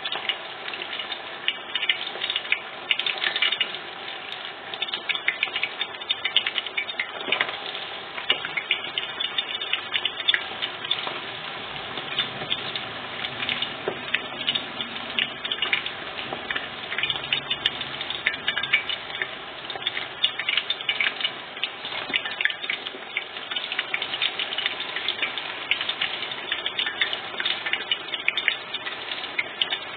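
Meatballs frying in a deep pan of plenty of hot sunflower oil over medium heat: a steady, dense sizzle with constant crackling pops.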